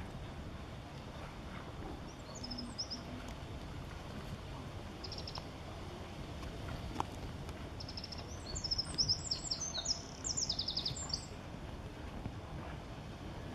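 A small songbird chirping in short high phrases, a few early on and then a longer busy run of chirps, over a steady low outdoor rumble.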